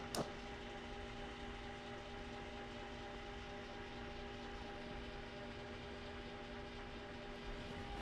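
Steady low background hum with several held tones that do not change. One light click comes just after the start.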